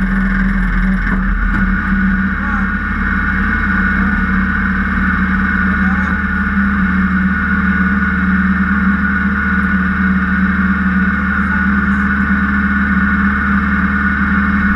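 Kart cross engine idling steadily at a constant pitch while the car stands still, heard from the onboard camera in the cockpit.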